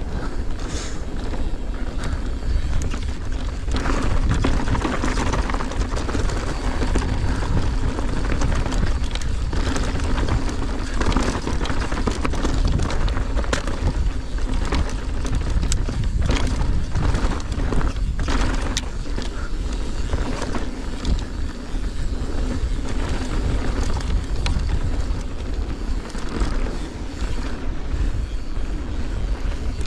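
Mountain bike riding down a rough trail: tyres running over dirt and rock, with frequent rattles and clacks from the bike and constant wind rumble on the microphone.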